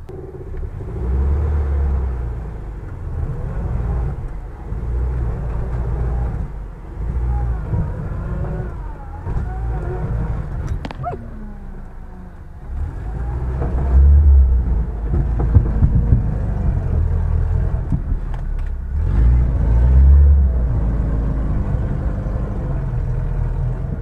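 UAZ-469 engine heard from inside its cab, running under load and revving in several surges while the vehicle pulls against a tow line in the mud.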